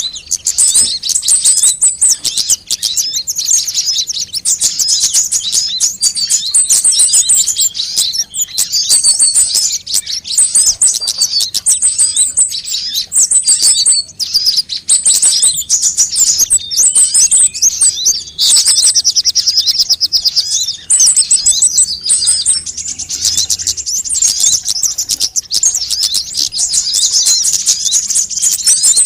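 Sunbirds ('kolibri' in Indonesian bird-keeping) singing without pause: dense, high-pitched rapid chirps and twittering trills, with short runs of very high repeated notes. It is a lure and training recording for drawing in wild birds and getting caged birds to sing.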